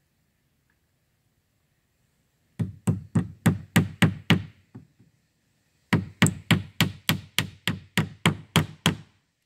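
Hammer striking wood in two runs of quick, evenly spaced blows, about four a second, with a short pause between them.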